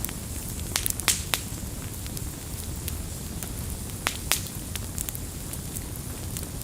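Campfire burning: wood crackling with sharp pops and snaps over a steady low rumble of the flames. The loudest pops come about a second in and just after four seconds.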